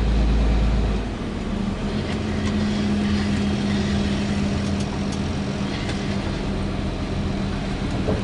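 Car engine and road noise heard from inside the cabin while driving: a steady hum. The deepest rumble drops away about a second in.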